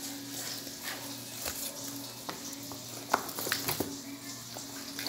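Freshly caught wet fish being handled and shifted in a pile by hand: scattered wet squelches, slaps and clicks, over a faint steady hum.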